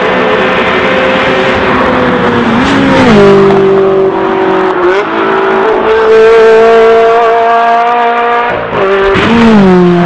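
Ferrari 360 Challenge Stradale's V8 engine running at high revs as the car passes at speed. The engine note falls in pitch about three seconds in, and again about nine seconds in as another pass goes by.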